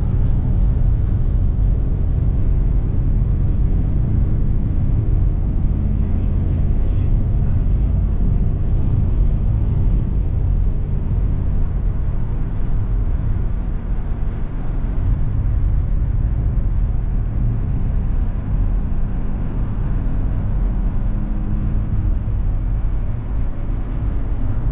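Steady low rumble of a vehicle driving along the road: engine, tyre and wind noise.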